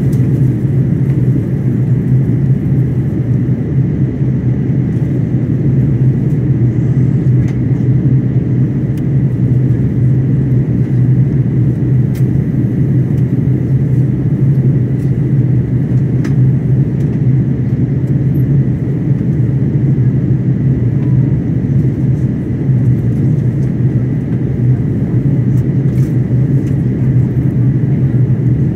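Steady cabin drone inside an Airbus A330-900neo airliner descending toward landing: engine and airflow noise heard as a low hum over a broad rumble, with a faint steady high whine.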